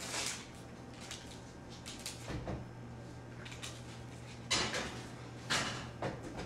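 An oven door being opened and shut and a baking tray put inside: a few separate knocks and clatters, the loudest about four and a half and five and a half seconds in, over a low steady hum.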